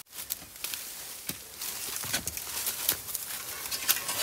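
Bamboo leaves and stems rustling and dry plant litter crackling as a clump is pulled and dug at, with scattered sharp snaps and knocks at irregular times.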